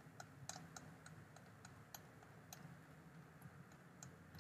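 Faint, irregular clicking of a computer mouse's scroll wheel as a long list is scrolled down, a couple of clicks a second, over near silence with a faint low hum.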